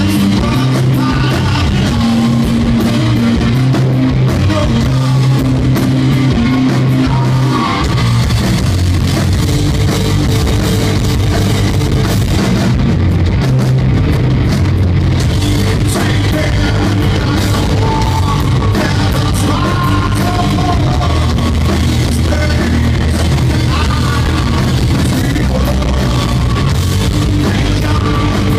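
A rock band playing live, loud: distorted electric guitar, bass guitar and drum kit, with a singer at the microphone.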